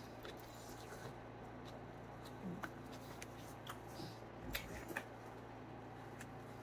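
Faint chewing and small wet mouth clicks from a mouthful of noodles being eaten, with a few soft fork or bowl clicks, over a low steady room hum.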